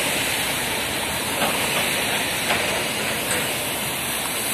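Heavy downpour: the steady, even hiss of pouring rain.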